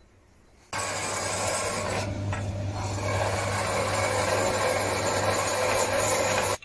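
Bandsaw running with a steady motor hum while its blade cuts through a small brass bar, a continuous rasp of blade in metal. It starts abruptly just under a second in.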